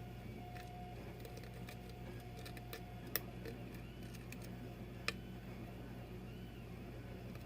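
Faint clicks and ticks of a lock pick working the pins inside a pin-tumbler challenge lock, with two sharper clicks about three and five seconds in.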